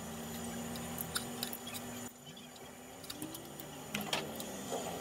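Hand tools clicking and knocking on a motorcycle being dismantled, over a steady low hum that stops abruptly about two seconds in.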